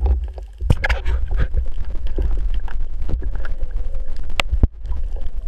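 Underwater water noise heard through a submerged camera housing at the surface: a steady low rumble of moving water with scattered clicks and knocks, and one sharp click about four seconds in.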